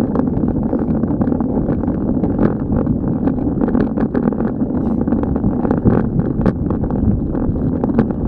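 Wind rumbling on the microphone of a bicycle climbing slowly uphill, a steady low noise, with scattered light clicks and ticks.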